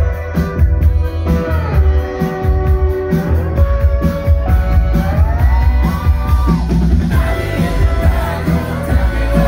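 Rock band playing live: the lead singer's vocals over electric guitar and keyboard, with a heavy low end.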